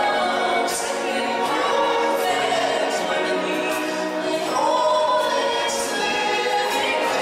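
Live stage-show music with a choir singing, sustained sung notes rising and falling, and a few sharp hits in the accompaniment.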